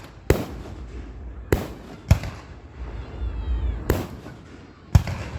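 Five sharp explosive bangs at irregular intervals of about half a second to two seconds, each with a brief echoing tail, over a low rumble.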